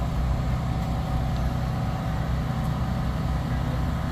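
Portable generator running steadily, a constant low engine hum.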